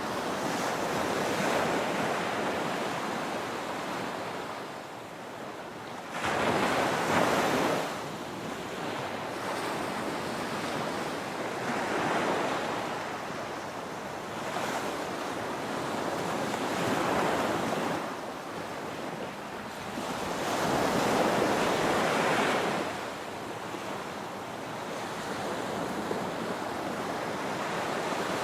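Ocean waves breaking and washing up a beach, swelling in surges every few seconds over a steady rush of surf. The loudest break comes in suddenly about six seconds in.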